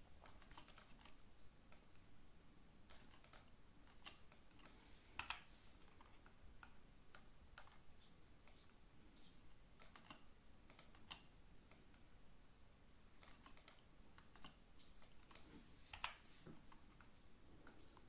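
Faint, irregular clicking of a computer mouse and keyboard keys, including the spacebar, a few sharp clicks a second.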